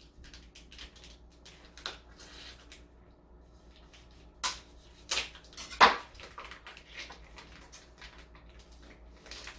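Plastic packaging of a whole duck being slit with a knife and pulled open: light crinkling and scattered small clicks, with a few sharper knocks in the middle, the loudest about six seconds in.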